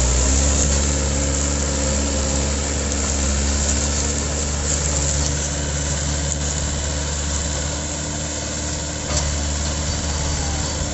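Mahindra 575 DI tractor's four-cylinder diesel engine running hard and steady at high revs, pulling a heavily loaded sugarcane trolley.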